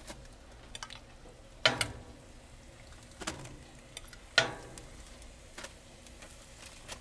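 A handful of sharp metal clicks and taps, the loudest about two seconds and four and a half seconds in, from a fork and spatula knocking against the aluminium foil and grill grate as salmon fillets are shifted. A faint sizzle from the fillets on the hot foil runs underneath.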